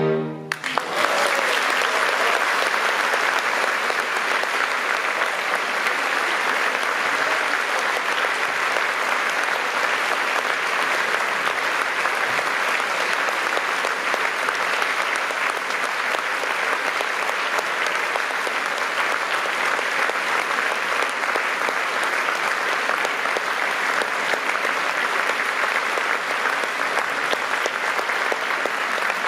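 The final chord of a piano quartet (violin, viola, cello and piano) stops within the first half-second, and an audience then applauds steadily.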